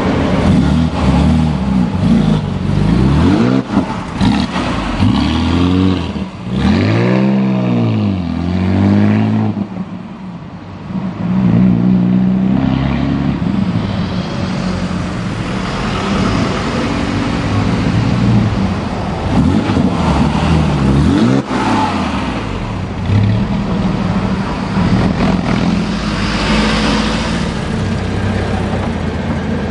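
Porsche 911's flat-six engine and exhaust at low road speed, revved in several quick blips in the first third, the pitch climbing and falling each time, then running more steadily with a few more rises in revs.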